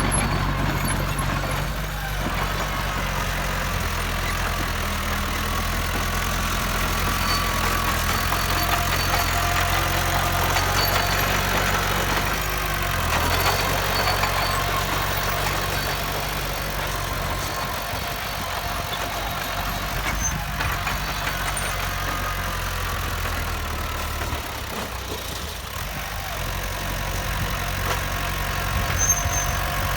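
Heavy diesel engine of earthmoving machinery running steadily, its low engine note easing off a little past the middle and picking up again near the end.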